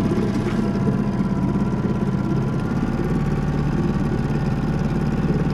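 Small boat's engine running steadily at a low, even speed.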